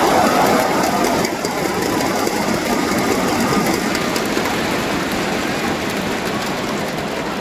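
Crowd noise in a badminton arena between rallies: a dense hubbub of cheering and chatter that slowly dies down.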